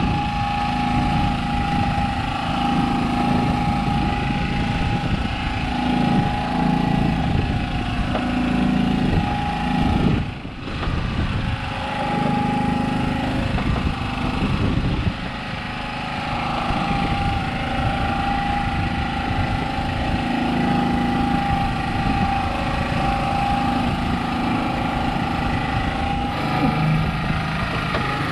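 An engine running steadily on a small wooden fishing boat, a constant drone with a steady hum riding above it and a brief drop in level about ten seconds in.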